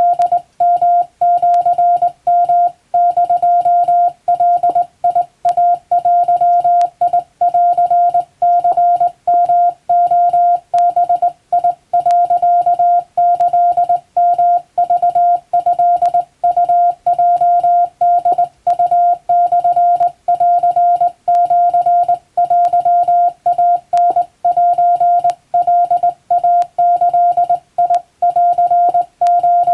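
Japanese wabun Morse code, sent as a single steady pitch switched on and off in short dots and longer dashes with brief gaps between characters.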